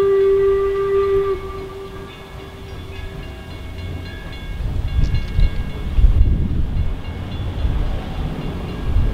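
York 17, a 4-4-0 steam locomotive, sounds its steam whistle in one steady tone that cuts off about a second in. From about halfway through, a low, uneven rumble of the locomotive's exhaust and running gear takes over as it moves toward the crossing.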